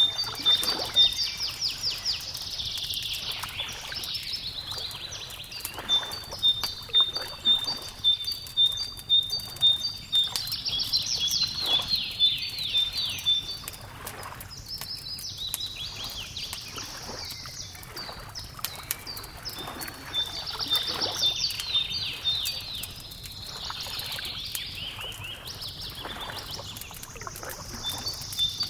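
Birdsong over a crackling wood fire: a songbird sings a fast, twittering phrase about every five seconds, over another bird's steady run of short, high, evenly spaced notes. Sharp little pops and snaps of burning wood run underneath.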